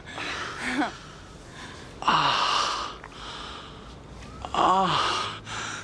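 A person's breathy vocal sounds, gasps and huffs in three bursts a couple of seconds apart, the last starting with a short voiced grunt.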